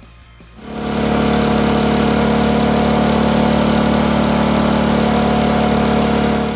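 Briggs & Stratton P3000 inverter generator running hard under a heavy load of nearly 2800 W from two hairdryers: a loud, steady engine hum over the rushing air of the hairdryers. It comes in suddenly about a second in.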